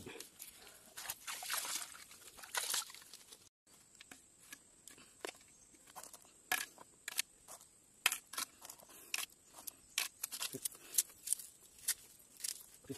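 A large knife blade cutting and whittling a green bamboo tube: a run of sharp clicks and knocks at irregular intervals, several a second at times. In the first few seconds, before it, a wood fire is crackling and rustling.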